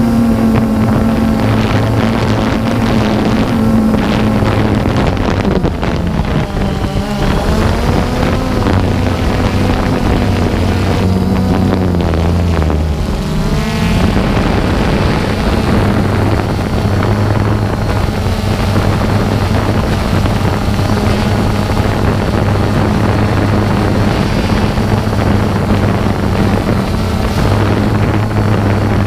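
DJI Phantom 2 quadcopter's motors and propellers droning steadily, with wind rushing over the microphone. About a third of the way in the pitch wavers and dips for several seconds as the motors change speed, then steadies again.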